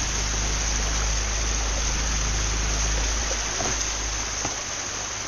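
Water rushing down a steep concrete ditch: a steady hiss, with a low rumble underneath that drops away about three seconds in.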